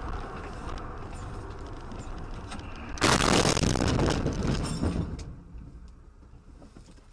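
A car's steady road and engine noise heard from inside the cab, then about three seconds in the loud crash of a head-on collision with an oncoming vehicle, lasting about two seconds before it dies away.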